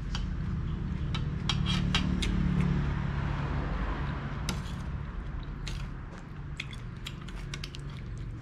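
Eating sounds: a metal spoon clicking and scraping against a ceramic bowl, with chewing and mouth noises, as sharp scattered ticks over a steady low hum.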